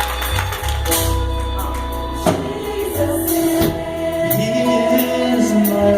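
Gospel choir singing a sustained melody over a live band, with a deep held bass line and regular percussion strokes.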